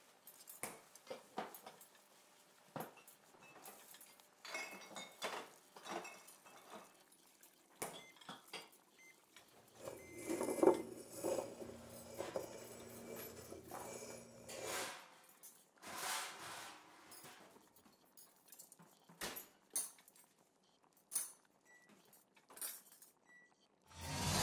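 Faint, scattered clinks and knocks of glassware and a glass bottle handled on a wooden bar counter, with a low hum for a few seconds midway. Music begins right at the end.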